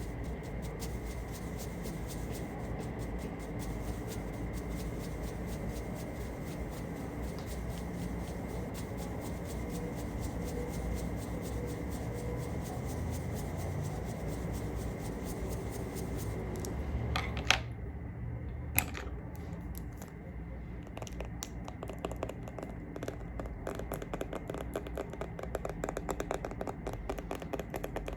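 Close-miked makeup handling: dense scratching and fine clicking for more than half the time, then two sharp clicks, then quick rapid tapping.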